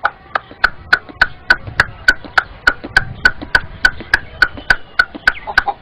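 A boy clicking his tongue in a steady clip-clop, about three sharp clicks a second, imitating a horse's hooves on a paved road as it pulls a tonga.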